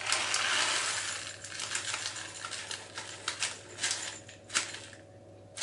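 Blanched chopped almonds pouring from a plastic bag into a glass bowl: a continuous trickle for about the first second and a half, then scattered small ticks and bag rustles as the pour tapers off.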